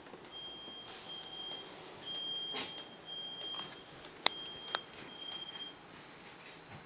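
Smoke alarm sounding a high steady tone in repeated beeps about half a second long with short gaps, which stops about six seconds in. A few sharp clicks sound over it, the loudest about four seconds in.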